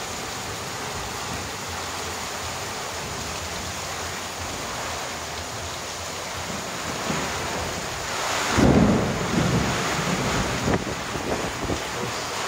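Heavy rain pouring steadily. A little over eight seconds in, a sudden loud thunderclap breaks out and rumbles on for a few seconds, with smaller rumbles after it.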